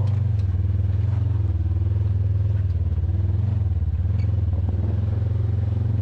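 Polaris RZR 900 Trail's twin-cylinder engine running with a steady low drone as the side-by-side drives over a rocky trail, its pitch shifting slightly now and then, with a few light knocks.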